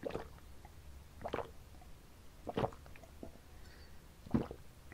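Gulps of liquid swallowed from a glass cup, four of them about a second and a half apart, the last one loudest.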